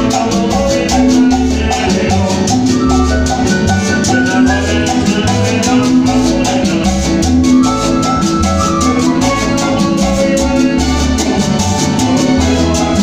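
Live Latin dance band playing loud and steady: a pulsing bass line and drums under a melodic line, with a constant fast shaken-percussion rhythm, amplified through the hall's speakers.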